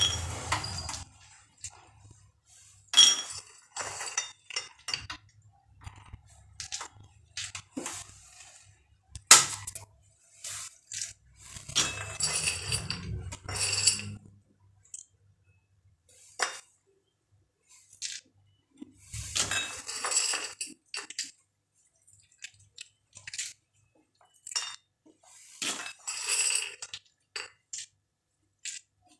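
Raw groundnuts (peanuts) clicking and rattling against ceramic plates as they are sorted by hand, in irregular clusters of small clinks with quiet gaps between.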